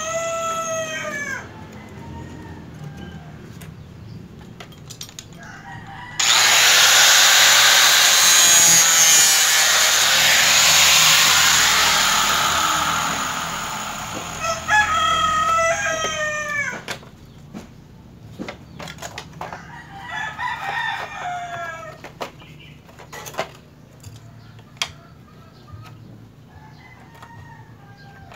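A rooster crows near the start and again about halfway through, with a fainter crow a few seconds later. About six seconds in, a loud, even rushing noise starts suddenly and runs for about eight seconds before fading; it is the loudest sound here. Light clicks and knocks from the plastic grille parts being handled come throughout.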